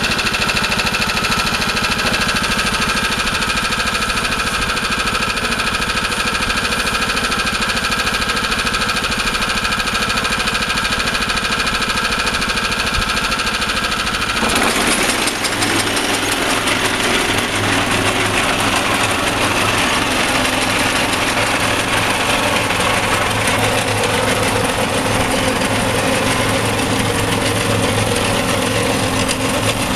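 Engine of a mechanical cranberry picker running steadily. About halfway through, the sound changes abruptly to a deeper, steady hum.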